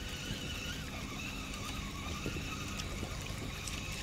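Spinning reel being wound as a small perch hooked on a jig is reeled in, over a low steady rumble and faint water sounds.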